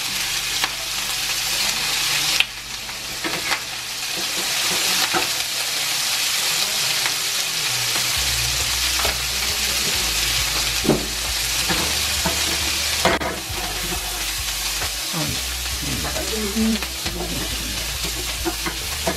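Seasoned chunks of filet mignon searing in smoking-hot oil in a frying pan: a steady, loud sizzle with occasional sharp pops and crackles.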